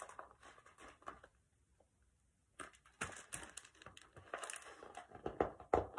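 Pages of a picture book being turned and handled: faint paper rustling and crinkling with light clicks, in two spells with a short quiet gap between them.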